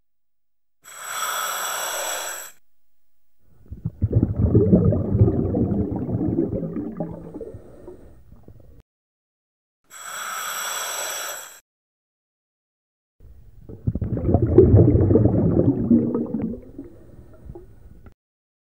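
Scuba diver breathing through a regulator underwater: two full breaths, each a short hiss of inhaled air followed by a long burble of exhaled bubbles lasting about five seconds, with the next inhale starting at the very end.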